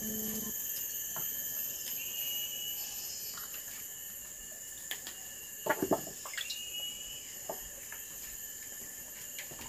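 A steady, high-pitched insect drone, with a few sharp clicks and taps of a knife cutting raw vegetables on a plate, including a quick cluster of taps a little under six seconds in.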